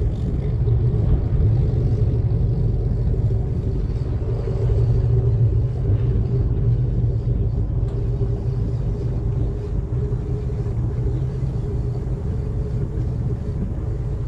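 Twin MerCruiser 6.2-litre V8 inboard engines idling, a steady low rumble.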